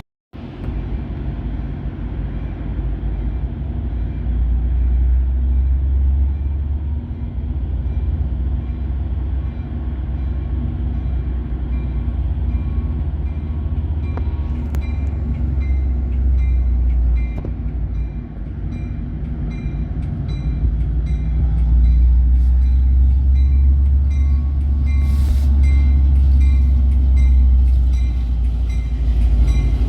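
Diesel locomotive-hauled train running close by, a loud steady deep engine rumble with rail noise, growing louder near the end.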